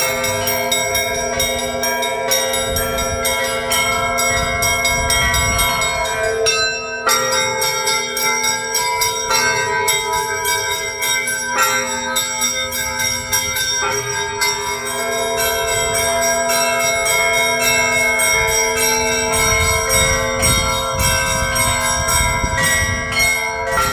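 Russian Orthodox church bells in a festive peal: small bells struck in rapid, dense patterns over the steady ringing of a deeper bell.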